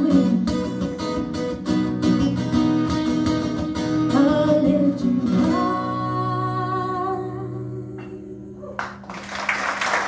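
Two acoustic guitars play the closing bars of a song, ending on a final chord that is left to ring and fade for a few seconds. Audience applause breaks out about nine seconds in.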